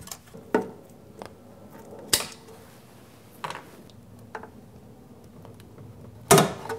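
Screwdriver and wiring being handled inside a steel electrical enclosure: scattered light clicks and knocks, about one a second, with a louder clatter near the end.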